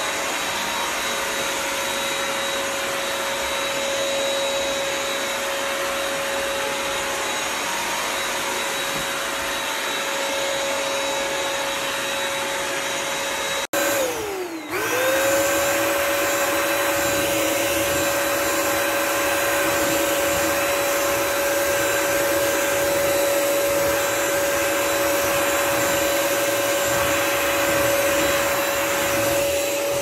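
Bissell CrossWave Pet Pro wet-dry vacuum and mop running on a hardwood floor: a steady motor tone over the hiss of its suction. About halfway through, the sound breaks off for a moment, and the tone dips in pitch and climbs back up to speed.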